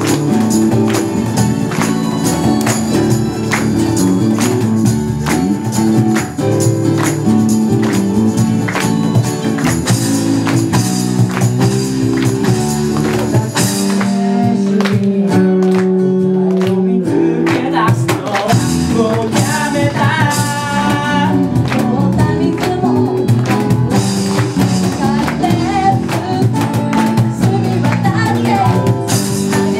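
Live pop band music: a male and a female singer over stage piano, acoustic guitar and drums. The drums and cymbals drop out for a few seconds about halfway through, leaving voices and sustained keyboard chords, then the beat comes back.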